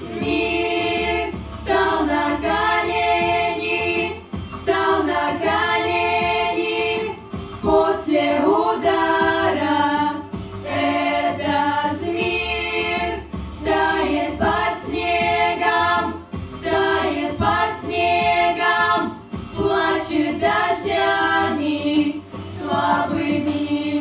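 Group of girls singing a song together into handheld microphones, in sung phrases with short breaks between them.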